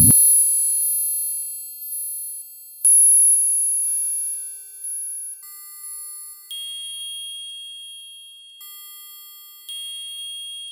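Experimental electronic noise music. A loud burst of noise cuts off at the very start, and then high, piercing pure tones enter one after another every second or two, each starting abruptly and slowly fading, with no beat.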